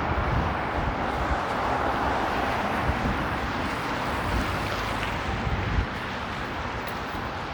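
Wet city street in steady rain: a continuous hiss of traffic on the wet road and falling rain, with wind buffeting the microphone in uneven low rumbles.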